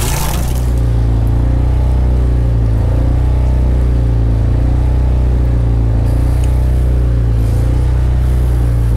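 Kohler 5E marine generator running steadily, a constant low hum, heard from inside the boat's cabin. It keeps running now that the shutdown problem is fixed.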